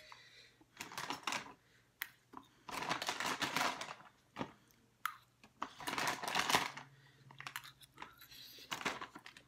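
Short bursts of crisp clicking and crackling, a few seconds apart, from eating chatpate, a crunchy spicy puffed-rice snack: a metal spoon picking and tapping at a ceramic plate, and the snack being crunched. A few single sharp clicks come between the bursts.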